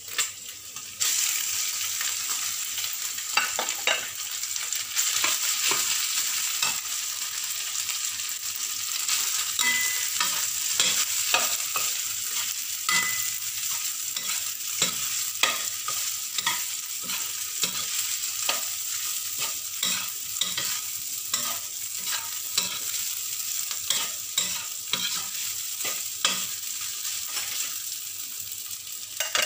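Rice frying in hot oil in a stainless steel wok: a steady sizzle that starts about a second in. Over it a utensil scrapes and knocks against the wok about once a second as the rice is stirred.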